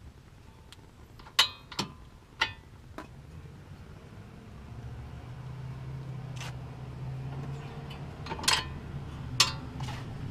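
Scattered sharp metallic clicks and knocks of hand tools against steel suspension parts while the lower ball joint bolts are tightened. A low steady hum grows louder from about halfway.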